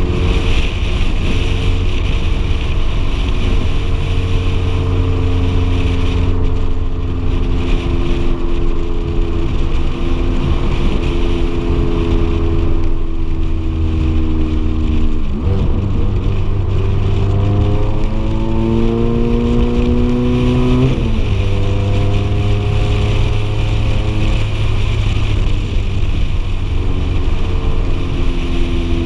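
Ferrari F430's 4.3-litre V8 running at a steady cruise under a rush of wind and road noise. Partway through, the engine note climbs as the car accelerates, then drops sharply at a gear change and settles to a steady drone.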